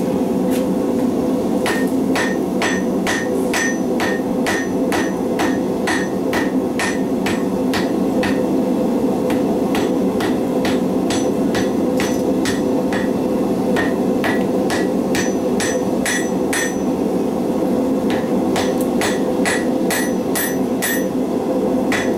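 Hand hammer striking red-hot steel wire cable on an anvil, forge welding the strands: a long run of ringing blows, about two to three a second, with a short pause near the end. A steady rush from the gas forge runs underneath.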